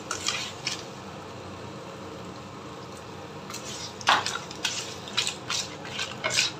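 Wooden spatula stirring razor clams in a non-stick wok: the hard shells clatter and scrape against each other and the pan in quick strokes, a few just after the start and then many from about three and a half seconds in. Between the strokes a soft, steady sizzle of the simmering tom yam liquid.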